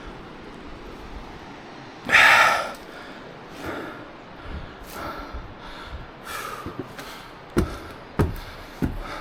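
A man breathing hard from a steep climb: one loud gasping breath about two seconds in, then several softer breaths. A few sharp knocks near the end.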